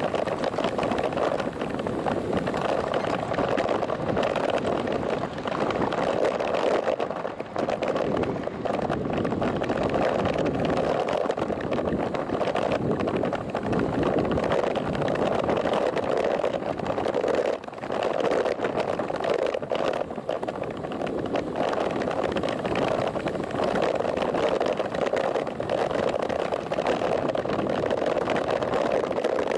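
Steady rush of wind and road noise on a bicycle-mounted camera's microphone while riding a road bike at about 25–30 km/h.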